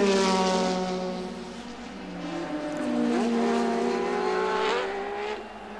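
Turbocharged 1.5-litre TAG-Porsche V6 of a McLaren MP4/3 Formula 1 car at racing speed. Its engine note falls in pitch as it passes and fades, then about three seconds in it climbs sharply as the car accelerates again.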